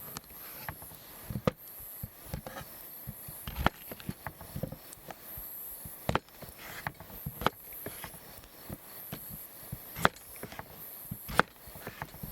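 Irregular sharp knocks and clicks, roughly one to two seconds apart, over a steady faint high hiss.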